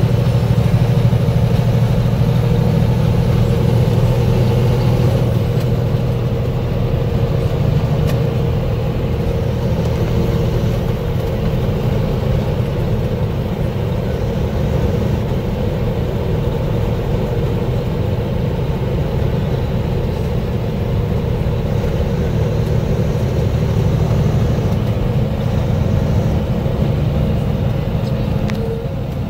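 Steady drone of a semi-truck's diesel engine and tyre and road noise, heard from inside the cab while cruising on a highway.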